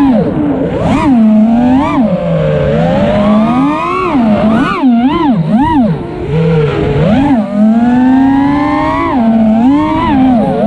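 FPV freestyle quadcopter's brushless motors and propellers whining as heard from the onboard camera, the pitch swinging rapidly up and down with the throttle as it flips and dives.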